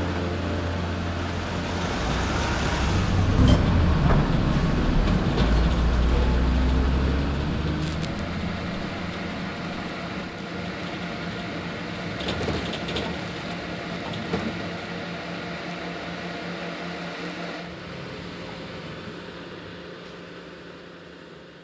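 City bus in motion: engine rumble and road noise with occasional rattles and clicks. The rumble is heaviest for the first several seconds, then thins, and the sound fades out near the end.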